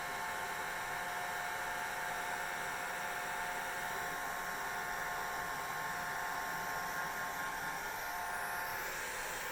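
Hair dryer running steadily, its blowing air and motor holding an even pitch with a light whine.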